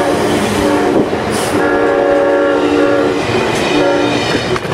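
Amtrak GE P42DC locomotive's multi-note chime horn sounding in separate blasts: a short one near the start, a long one in the middle and another short one about four seconds in. Under it runs the steady wheel noise of passenger cars passing close by.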